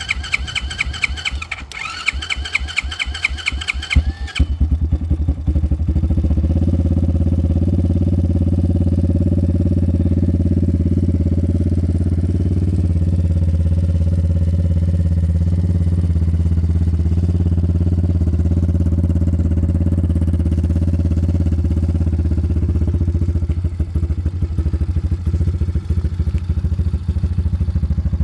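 YCF 150 pit bike's single-cylinder four-stroke engine being cranked by its electric starter with a fast, high-pitched pulsing. The engine catches about four seconds in and then idles steadily.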